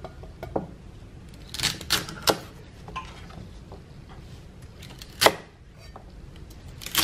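Chef's knife chopping celery stalks on a wooden cutting board: irregular knocks of the blade hitting the board, several close together about one and a half to two and a half seconds in and a loud single chop about five seconds in.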